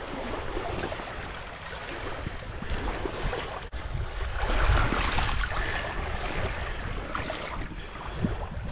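Shallow water washing and lapping over stones and sand at the shoreline, with wind rumbling on the microphone, strongest about halfway through.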